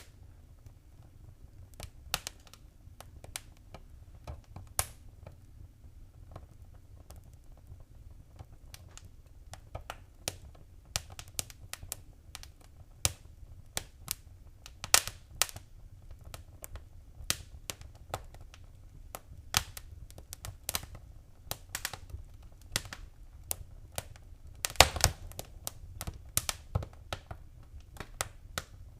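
Fireplace fire crackling: irregular sharp pops and snaps over a low steady rumble, growing busier in the second half with a burst of loud pops a few seconds before the end.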